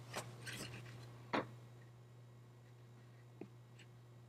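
Faint workbench handling sounds: a little light scraping, then a single sharp knock about a second and a half in and a small click near the end, over a steady low hum.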